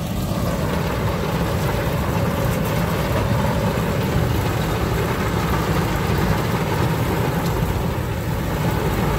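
A tractor engine and a Krone KR 125 round baler running steadily while baling hay, as a continuous even machine drone.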